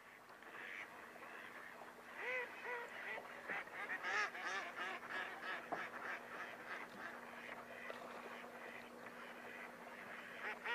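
A flock of waterfowl on the lake calling: many short overlapping honks and quacks, growing busier a couple of seconds in, over a faint steady hum.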